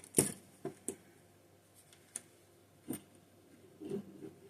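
A few sharp, irregular clicks and light taps from small tools and carburetor parts being handled during a Holley carburetor teardown, the loudest just after the start.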